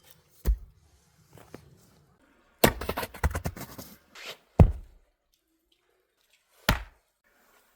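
A few separate hard knocks, with a second or so of rapid clattering knocks in the middle.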